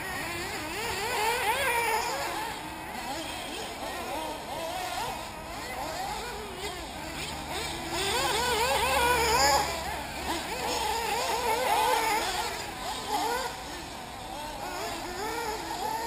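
Several 1/8-scale nitro RC buggies racing, their small two-stroke glow engines whining and overlapping, each rising and falling in pitch as the cars accelerate and brake. The engines are loudest around nine seconds in.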